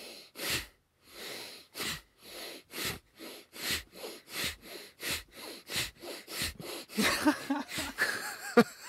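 Two men doing an energising breathing drill: sharp, forceful exhales through the nose in a steady rhythm of about one and a half a second. In the last couple of seconds the breathing breaks into short laughs.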